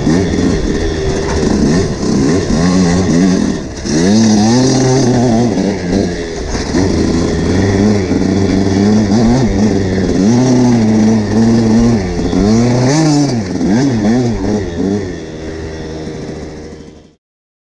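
KTM SX 125 two-stroke motocross engine under way, revving up and dropping back over and over as the bike is ridden and shifted. It fades out near the end.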